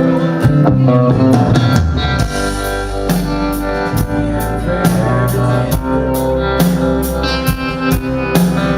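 Live country band playing an instrumental passage between sung lines: guitars over a steady drum-kit beat.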